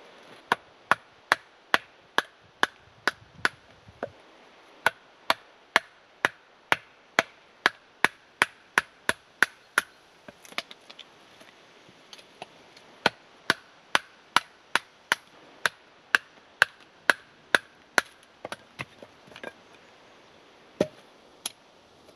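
Wood being chopped with a blade: sharp, evenly spaced strokes about two a second, in runs with short pauses between them, and a few lighter knocks near the end.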